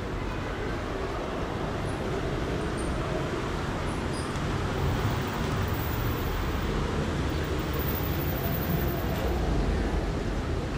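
Steady road traffic noise, a continuous low rumble that swells slightly about halfway through.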